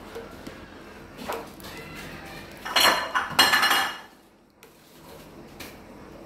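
A wire-mesh skimmer clinking and scraping against a stainless steel pot while stirring fruit in syrup, with a loud stretch of scraping a little under three seconds in that lasts about a second.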